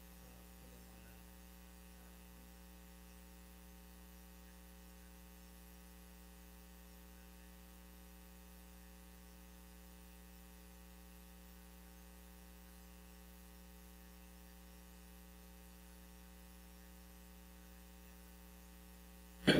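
Steady electrical mains hum with a stack of overtones over a faint hiss, unchanging throughout; a single sharp click right at the end.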